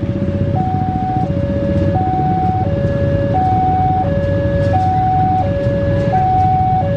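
Railway level-crossing warning alarm sounding two alternating tones, low then high, each held about two-thirds of a second, over the steady low rumble of an idling diesel locomotive.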